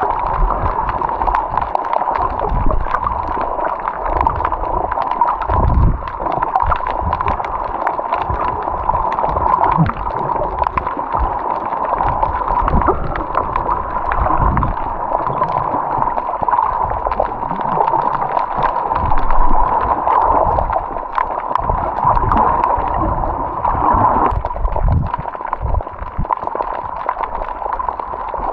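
Water gurgling and sloshing right at the microphone, with irregular low thumps and a steady hum underneath.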